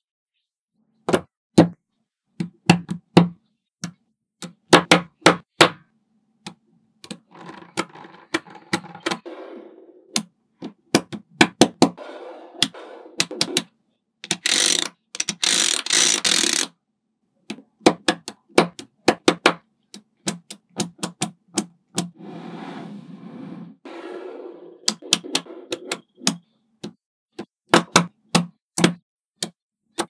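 Magnetic balls clicking and snapping together as rows and blocks of them are joined into walls, in uneven runs of sharp clicks, with stretches of denser rattling and a brighter, harsher rattle lasting about two seconds halfway through.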